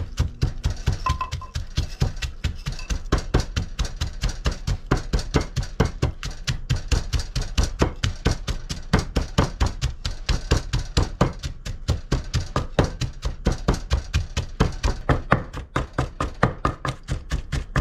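Wooden pestle pounding steadily in a large mortar, about four to five knocks a second, crushing chilies, garlic and sugar for a papaya-salad dressing.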